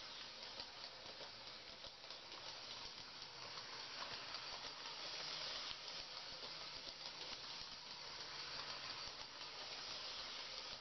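A small model steam locomotive running on three-rail track, powered by PWM DC: a faint, steady whirring hiss from its electric motor and rolling wheels, with fine clicking.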